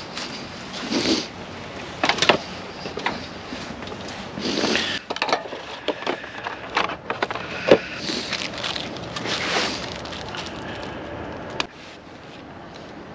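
Irregular clicks, knocks and rustling of hands working with a small solar panel and its plastic mount and hardware during installation, over a steady wind hiss on the microphone.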